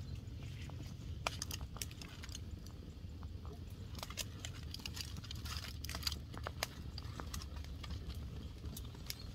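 Open wood fire crackling, with scattered sharp pops and snaps. From about four seconds in, aluminium foil crinkles as a foil-wrapped fish is set on the wire grill over the flames.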